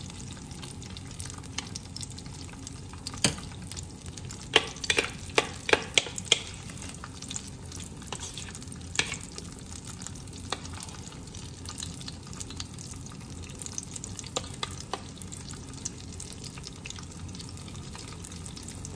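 Apple fritter batter frying in a small pan of hot oil, a steady sizzle. A metal spoon clicks against a bowl of batter in a quick run about three to six seconds in, with a few more clicks later as the batter is stirred and scooped.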